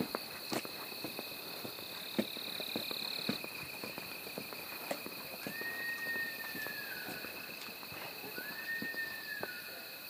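An unseen wild animal gives a high, drawn-out, scream-like call twice, each about a second and a half long and dropping in pitch at the end, from about halfway in. Steady insect trilling and crunching footsteps run underneath.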